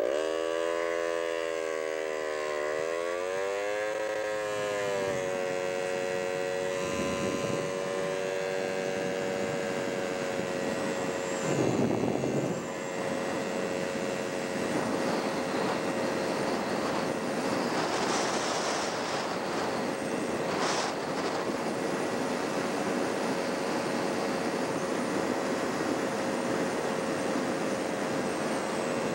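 Vehicle engine under way: its pitch dips and climbs over the first few seconds as it pulls out of a turn, then holds steady while cruising, over constant road and wind noise. About twelve seconds in there is a brief louder swell.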